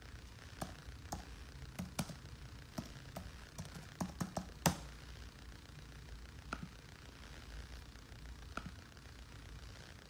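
Irregular light taps and clicks from someone working a computer or phone, about a dozen over ten seconds, the loudest a little under five seconds in, over a faint low room hum.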